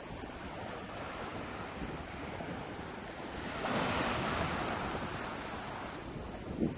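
Ocean surf washing onto a beach, with one wave breaking louder about halfway through. Wind rumbles on the microphone, with a short buffet near the end.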